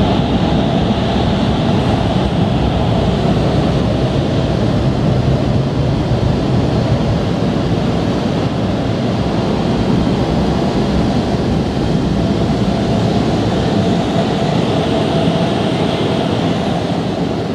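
Automatic car wash's overhead air-dryer blowers running, a loud steady rush of air heard from inside the car, easing slightly near the end.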